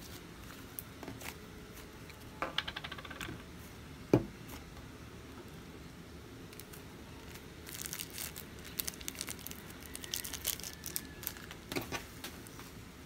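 Hands stretching and kneading a clay slime, making sticky crackling and popping clicks that come thickest in the second half. There is a quick run of clicks early on and one loud thump just after four seconds.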